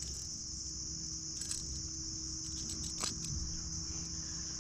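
Steady chorus of insects from the bankside vegetation: a continuous high-pitched buzz that does not let up. A couple of faint clicks come over it, about a second and a half in and again about three seconds in.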